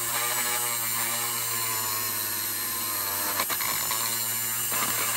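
Dremel rotary tool running steadily with a constant motor whine, its bit held against the back side of a plastic model car body to melt a hole through.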